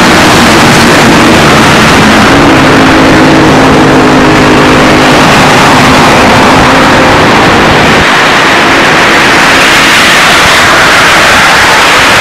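Road traffic: a motor vehicle's engine droning under loud, steady noise, its pitch rising about two seconds in and fading out after about six seconds.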